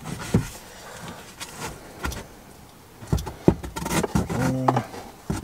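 A cardboard template being pushed up against the van ceiling with a stick: scattered knocks, taps and scrapes, with a short low hum near the end.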